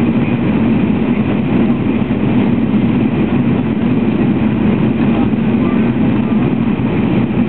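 Steady cabin drone of an airliner in flight, a constant low hum without change.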